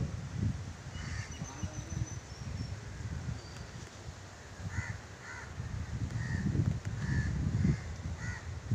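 Crows cawing, a run of short caws in the second half, over a gusty low rumble on the microphone. A faint high chirp from another bird about a second in.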